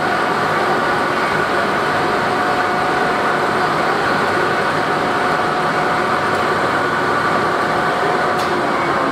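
Biomass pellet machine production line running: a loud, even machine noise with a few steady tones, unchanged throughout.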